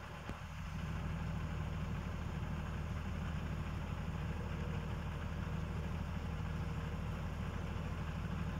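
Vehicle engine idling: a steady low hum that gets slightly louder about a second in.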